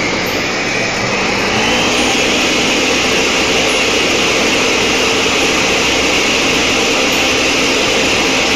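Countertop blender running at high speed, blending grated potatoes, potato juice and eggs into a smooth batter. The motor pitch rises over the first two seconds as it comes up to speed, then holds steady.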